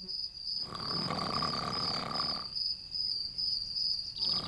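A man snoring heavily in his sleep: one long snore of about two seconds, then a pause, then the next snore beginning near the end, with crickets chirping steadily in the background.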